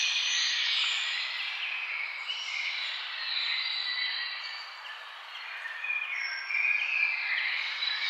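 Several birds chirping and singing, their short calls overlapping, over a steady background hiss.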